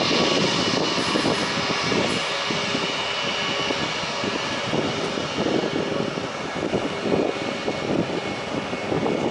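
Airbus A330-243's Rolls-Royce Trent 700 turbofan engines running as the airliner taxis. It is a steady high whine over a continuous rushing noise.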